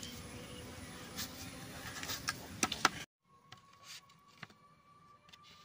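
Faint clicks and scrapes of a knife cutting pieces off a block of jaggery, over low background noise. About three seconds in, the sound drops abruptly to near silence with a faint steady tone.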